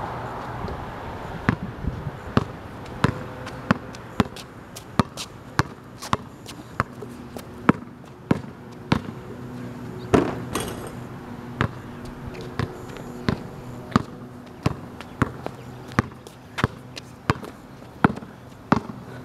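Basketball bouncing on a concrete driveway as it is dribbled, sharp bounces about one and a half a second. About ten seconds in comes a louder hit with a short ring as a shot strikes the hoop.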